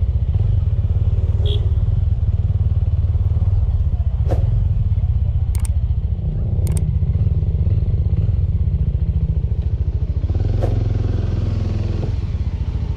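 Suzuki GSX250 motorcycle engine running as the bike is ridden, a steady low rumble with a few sharp clicks and knocks along the way. The engine note changes from about ten seconds in as the bike slows to a stop.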